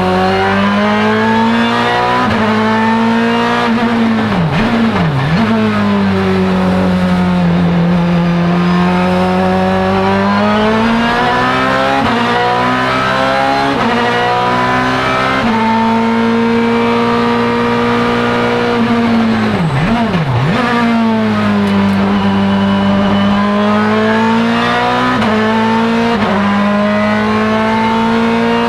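Ferrari F430 GT2/GTC's mid-mounted 4.0-litre V8, heard from inside the cockpit, running hard on track: the engine note climbs and falls through the sequential gearbox's gearchanges. About five seconds in and again about twenty seconds in, the pitch plunges and jumps back quickly, as in downshifts with throttle blips under braking.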